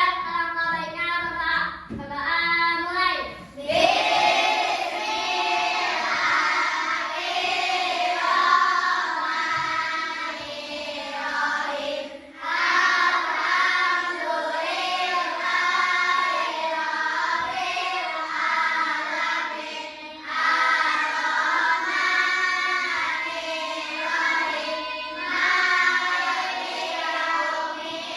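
A group of children singing a song together in unison, with short breaks between lines.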